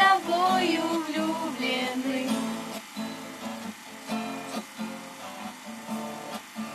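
Acoustic guitar strumming chords in a steady rhythm. Over the first two seconds a voice carries a sung line above it, and then the guitar plays on alone.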